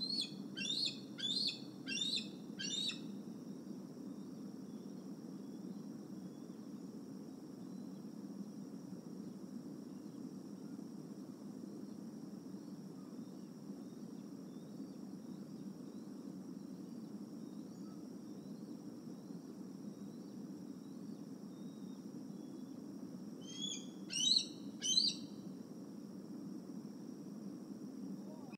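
Bald eagle calling: a quick run of about five high, piping notes, then quiet, then three more near the end, over steady low background noise.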